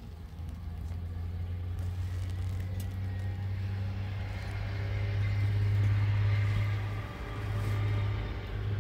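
An engine running with a steady low hum. It grows louder toward the middle, dips briefly and swells again near the end.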